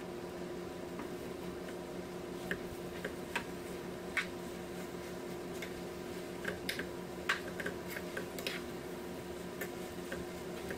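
Stir-fried flat rice noodles and vegetables being tossed and mixed in a nonstick pan: scattered light clicks and taps, over a steady low hum.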